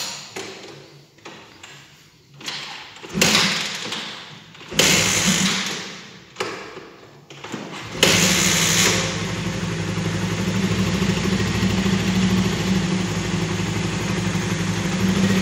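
Honda CB150R single-cylinder motorcycle engine being started after an oil change: a few short noisy bursts, then it catches about eight seconds in and settles into a steady idle. It runs smoothly on the fresh oil.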